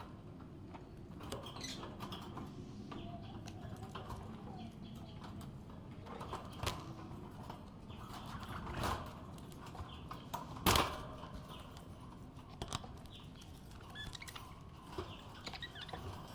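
Pet budgerigar chirping softly and sporadically, with a few short, sharp noises, the loudest about two-thirds of the way through.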